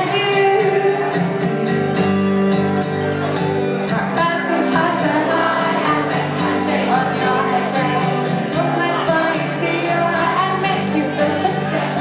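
A live pop song: a woman singing into a microphone over the band's accompaniment.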